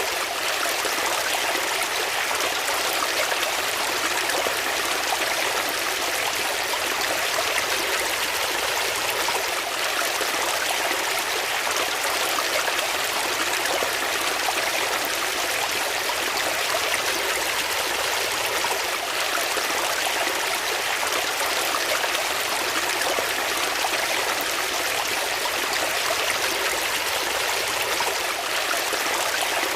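Water flowing steadily in a stream, a continuous even rushing with light trickling.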